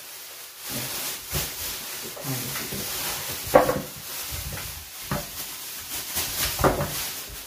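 Irregular knocks, scrapes and rustling as pieces of cow leg are handled for washing, over a faint hiss.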